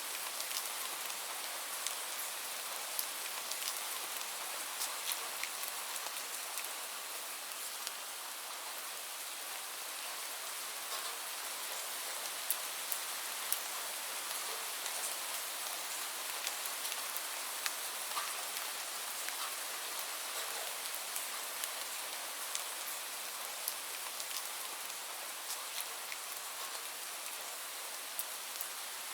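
Steady rain falling, an even hiss with many separate drops ticking on a surface throughout.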